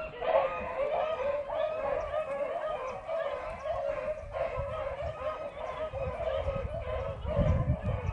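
Pack of beagles baying as they run a rabbit's trail: a steady chorus of overlapping, wavering hound cries.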